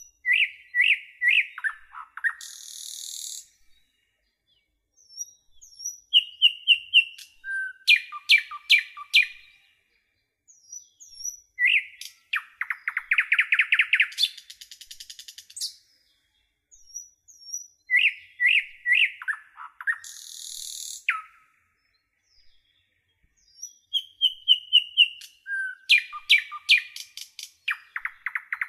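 Songbird singing a phrase of bright chirps and fast trills about every six seconds, with silence between phrases.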